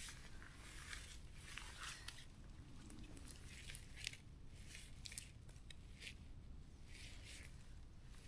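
Faint, irregular crackles and snaps of forest-floor litter, a dozen or so scattered ticks and rustles.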